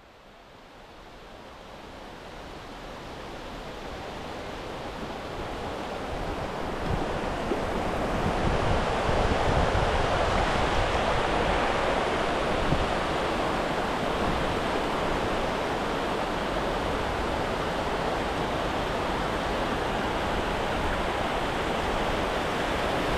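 Rushing water of a small waterfall, a steady hiss of falling water that grows louder over about eight seconds and then holds level.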